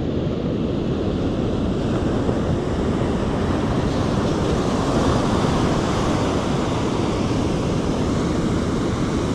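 Ocean surf breaking and washing up a sandy beach, a steady rush of waves, with wind buffeting the microphone.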